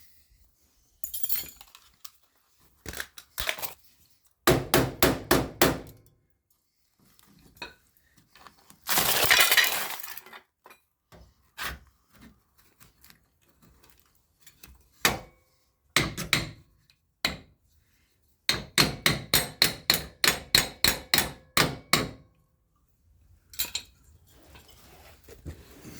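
Hammer tapping on sheet steel: quick runs of sharp, ringing metallic strikes, at times about four a second, with scattered single taps. About nine seconds in there is a short rushing hiss lasting about a second.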